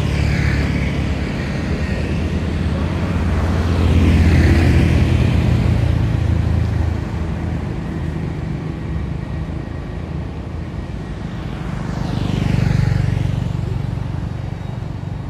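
Motor vehicles passing on a road, their engine and road noise swelling and fading twice, loudest about four seconds in and again near thirteen seconds.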